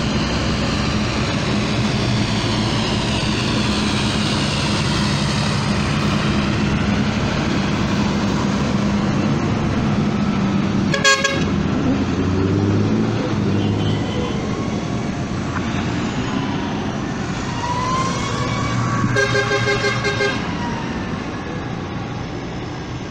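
Diesel engines of a procession of large modern farm tractors, mostly John Deeres, running steadily as they drive past one after another. A horn toots briefly about halfway through, and a second horn sounds for about a second near the end.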